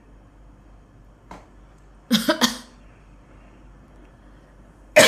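A person coughing: a burst of two or three quick coughs about two seconds in, and another burst starting right at the end.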